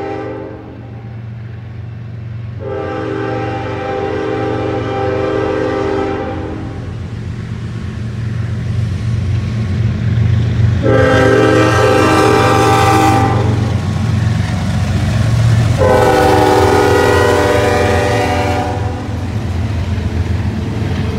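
Approaching CN freight train's diesel locomotive sounding its air horn in three long blasts, of about four, two and a half and three seconds, with the tail of an earlier blast at the start. Under the horn, a steady low rumble of the locomotives and the rolling double-stack cars grows louder as the train arrives and passes.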